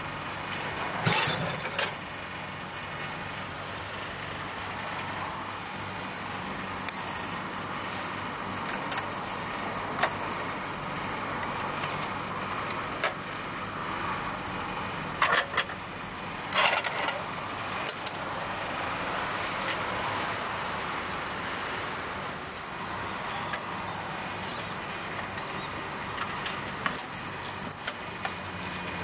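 Sharp clicks and knocks of a ramen vending machine's hinged delivery flap and a bowl being lifted out of the hatch, over a steady hum and passing road traffic.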